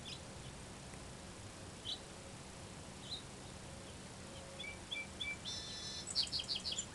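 Small songbirds chirping: a few scattered single chirps, then in the last couple of seconds a quick run of high notes and a short buzzy trill.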